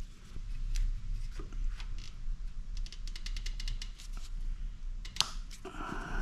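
Hand tools and parts being handled during work on a three-wheeler: scattered clicks and knocks, a quick run of about a dozen even clicks about three seconds in, and a sharp click near the end.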